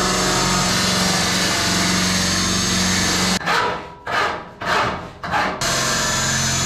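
Dremel rotary tool running at a steady high speed while deburring aluminum lightening holes. A little past halfway it stops, and four hand-file strokes scrape across the aluminum before the rotary tool runs again near the end.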